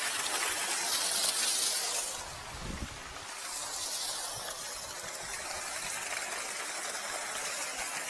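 Water rushing with a steady hiss, as from an opened pipe. About two and a half seconds in, the hiss briefly drops and a dull thump sounds.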